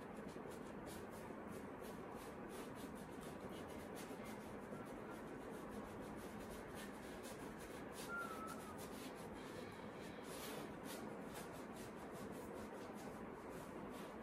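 Faint scratchy rubbing of a paintbrush stroking paint onto canvas, many short strokes over a steady background hiss.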